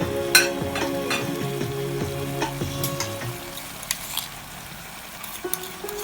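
Food sizzling in hot oil as it is stirred in a pan, with a utensil clicking against the pan a few times near the start.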